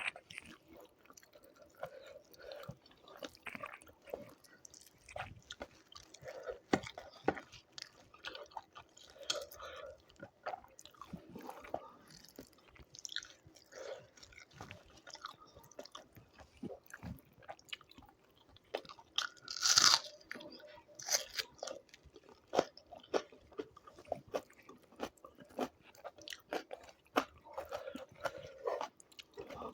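A person eating close to the microphone: chewing and crunching a meal of rice, doi chicken, raw radish and raw onion, with scattered short mouth clicks and one louder crunch about two-thirds of the way in.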